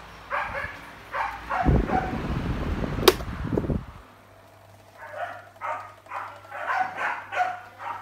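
Cornell desk fan running with a steady low motor hum. From about a second and a half in, its airflow buffets the microphone as a rumble for a couple of seconds, with one sharp click near the middle. A dog barks a few times near the start and in a quick run through the second half.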